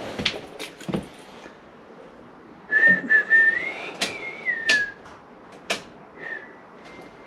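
A person whistling a short wavering tune for about two seconds, with a few sharp clicks and knocks of hand tools and wiring being handled.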